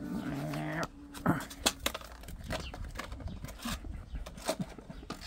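A short humming voice, then a run of irregular sharp clicks and taps, the loudest between one and two seconds in.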